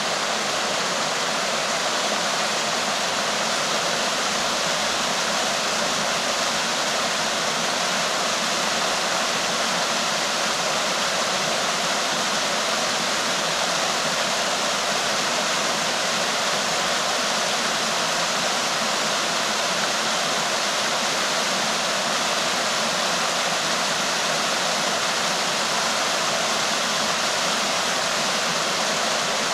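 Small mountain waterfall rushing steadily down a mossy rock face into a pool.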